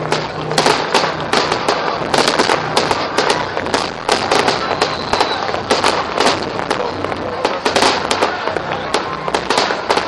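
Aerial fireworks display: shells rising and bursting in a continuous barrage of sharp bangs and crackles, several a second.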